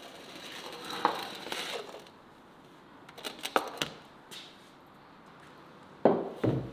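Metal baking pan scraped out across the brick floor of a wood-fired oven, with a few light clatters, then set down with two loud knocks on a wooden table near the end.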